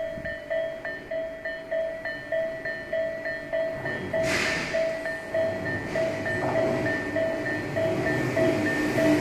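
Japanese level-crossing warning bell ringing its electronic two-tone strike at a little over two strokes a second. From about four seconds in, the rumble of a Tobu 8000 series two-car train grows as it approaches the crossing, with a short burst of noise just after four seconds.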